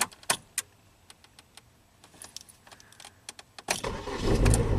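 A few sharp clicks from the car keys hanging in the ignition, just after the key is switched on. About four seconds in comes a loud, low rumbling noise that swells and then slowly fades.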